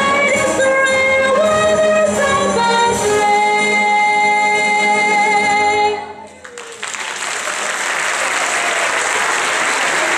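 A wind band and choir end a song on a held chord that cuts off about six seconds in. The audience then breaks into applause.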